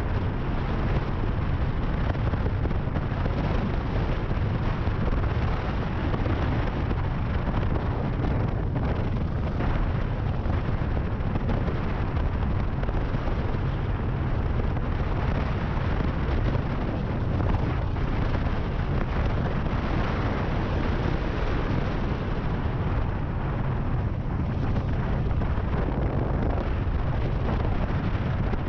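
Steady wind rush and low rumble on the microphone of a cruiser motorcycle cruising at a constant speed, with no gear changes or revving.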